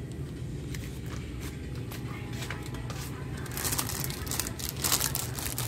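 Plastic toothbrush packaging crinkling and rustling as the packs are handled and put into a plastic shopping basket, with scattered small clicks at first and denser crinkling in the second half, over a steady low hum.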